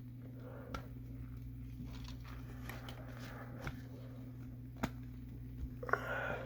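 Faint handling noise from a plastic gaming headset and its detachable mic being worked to fit the mic: soft rustling and a few sharp clicks, the loudest about five and six seconds in, over a steady low electrical hum.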